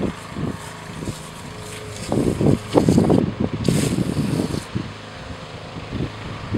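Aerosol can of foaming coil cleaner spraying onto an air-conditioner condenser coil, hissing in spurts, loudest about halfway through. Uneven low rumbling bursts run through the middle, louder than the spray.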